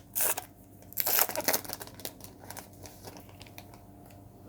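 Crinkling and tearing of a trading-card pack wrapper being ripped open by hand: two louder rips at the start and about a second in, then softer crinkles and small ticks as the wrapper is pulled off the cards.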